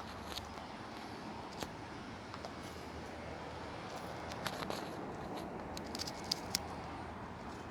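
Wet car-washing sounds: soft patter and squishing over a steady hiss, with scattered small clicks and drips, a few sharper ones about two-thirds of the way through.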